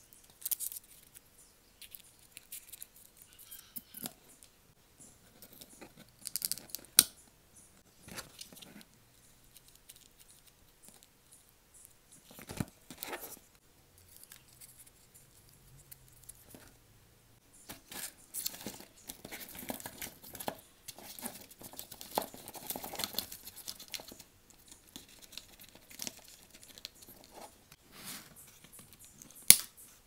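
Cardboard and wooden sticks being handled and fitted together: scattered clicks, taps and rustling, with a longer stretch of rustling and scraping about two-thirds of the way through and a few sharp clicks.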